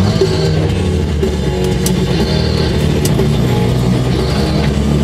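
Rock music with guitar playing, in a gap between sung lines.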